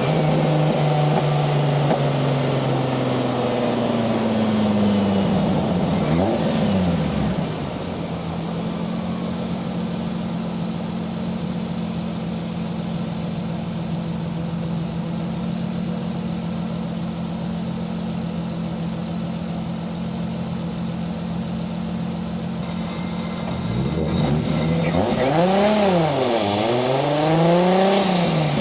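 Single-turbo Toyota 1JZ-GTE VVTi inline-six in a Nissan 240SX. The engine runs steadily, then its revs fall away, and it settles into a steady, quieter drone for about fifteen seconds. Near the end it accelerates hard twice, its pitch climbing and then dropping at each gear change, with a high turbo whistle rising along with the revs.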